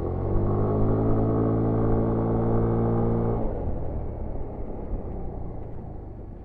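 Single-cylinder four-stroke engine and exhaust of a 2021 Yamaha NMAX 125 scooter pulling steadily under throttle, heard from the rider's seat. About three and a half seconds in the throttle is closed: the engine note drops away and fades, leaving rushing wind and road noise as the scooter coasts.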